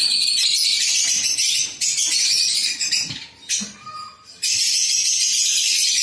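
A flock of caged lovebirds chattering: a dense, shrill, continuous chirping that drops away briefly around the middle and then resumes.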